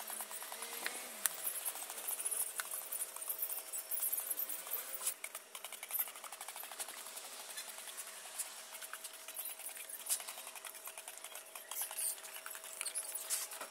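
Hand pressure garden sprayer misting potted plants: a continuous fizzing hiss from the nozzle with a fine crackle of droplets, rising and falling as the spray is swept over the leaves.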